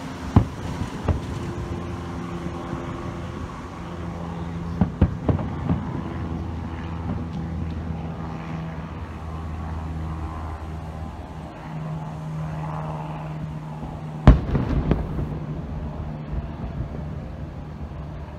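Fireworks bursting. There are a few bangs near the start, a cluster of three about five seconds in, and the loudest bang about fourteen seconds in, all over a steady low hum.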